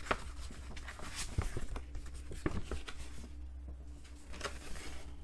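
Folded paper posters rustling and crinkling as they are handled and unfolded, in irregular bursts over the first three seconds and again near the end. A steady low hum runs underneath.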